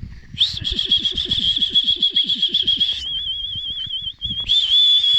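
A high whistle blown in long warbling blasts: one held about two and a half seconds, a quieter wavering stretch, then a steady blast near the end.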